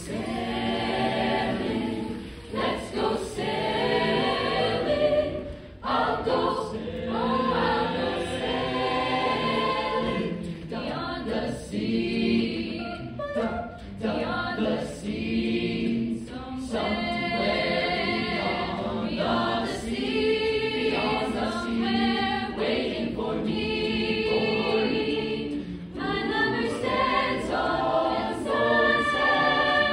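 Mixed-voice high school choir singing a song together.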